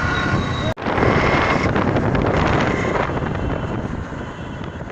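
Wind buffeting the microphone over the running noise of a vehicle on the road. A sudden brief cut comes a little under a second in, and the sound slowly fades over the last two seconds.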